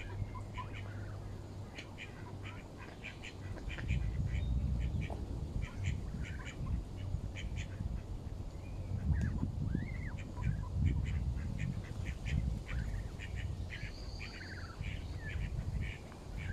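Canada goose goslings peeping in many short, high calls while they feed, with a few longer rising-and-falling whistles. A low rumble runs underneath from about four seconds in.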